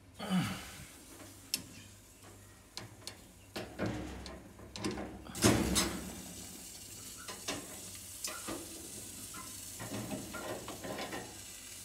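Metal rotisserie spit being set back into an oven and its mount: a run of irregular clicks, scrapes and metal knocks, the loudest about five and a half seconds in, over a steady hiss.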